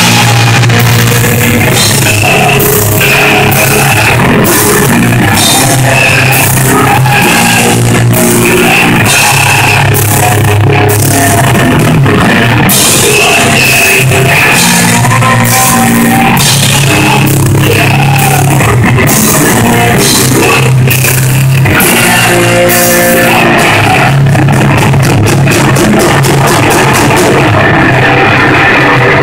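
Live heavy rock band playing loud: distorted electric guitar and a drum kit with crashing cymbals, with a singer at the microphone. A run of fast drum hits comes near the end.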